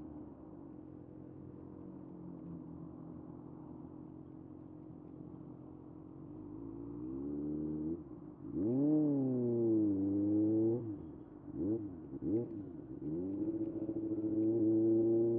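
Kawasaki ZX6R 2025's 636 cc inline-four engine, running steady at low revs, then revving up and down in several throttle blips about halfway through, with two short sharp blips a little later and the revs climbing steadily near the end.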